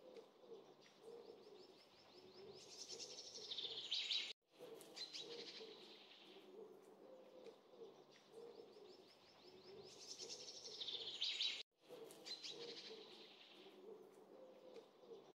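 Bird calls: high chirps and a quickening trill over low, wavering clucking calls from hens. The same stretch repeats about every seven seconds and cuts out briefly twice.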